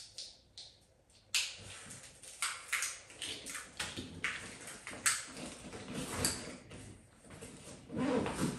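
Irregular rustling, clicks and light knocks of objects being handled, starting about a second in, with a heavier, deeper thumping near the end.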